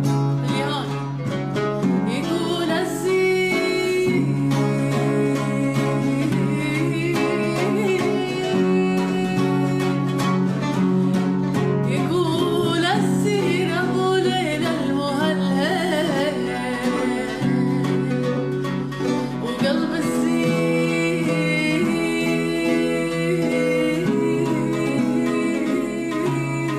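A sad Arabic song: a voice singing over a sustained instrumental accompaniment.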